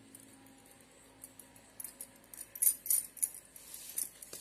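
Bangles on a wrist clinking and jingling as the hands pat and shape a ball of stuffed dough. The clinks begin about two seconds in and come in a quick, uneven run, loudest around three seconds in.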